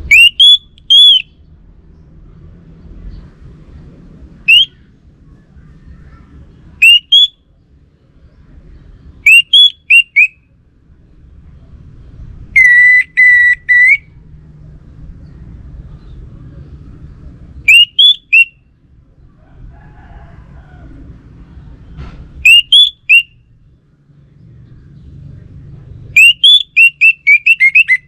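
Orange-headed thrush singing: short, loud, upward-slurred whistled phrases every few seconds, one long level whistled note a little before halfway, and a quick run of notes near the end.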